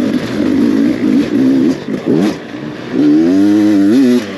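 Dirt bike engine revving in short bursts, then held hard at high revs for about a second from about three seconds in before dropping off.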